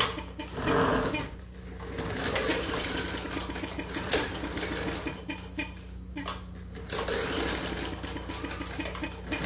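Briggs & Stratton small engine being cranked with its pull-start cord, turning over in quick rhythmic spurts of about two seconds each without catching, as it would with the spark plug out for a spark check.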